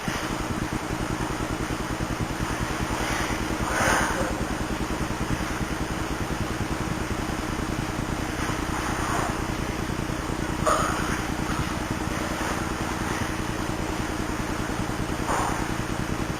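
A steady engine-like drone with a fast, even pulse, with a few short sounds over it about four, nine, eleven and fifteen seconds in.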